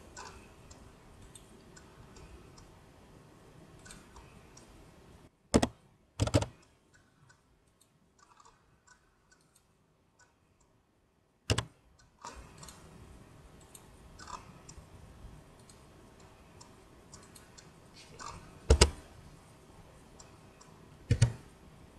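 Computer mouse and keyboard clicks: about five sharp clicks scattered over several seconds, with fainter ticks between them, over a faint steady hiss.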